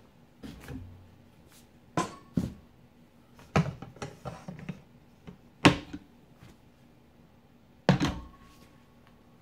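A GearTrack storage hook being repositioned on its wall-mounted track and a rake hung back on it: a series of separate sharp knocks and clacks, a few of them followed by a brief ringing, the loudest a little past the middle.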